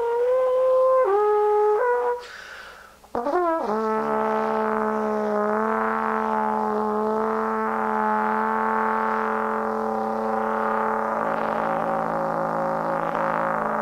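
Solo trombone playing free microtonal improvisation: a few short notes, a brief pause, a quick upward slide, then one long low note held steadily to near the end.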